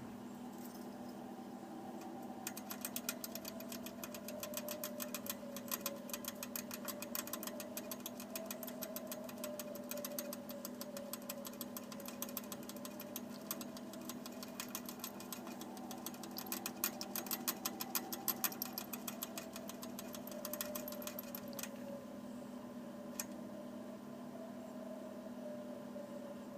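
Sleeping ferret snoring: a fast, rattling run of tiny clicks that starts a couple of seconds in and stops about 22 seconds in.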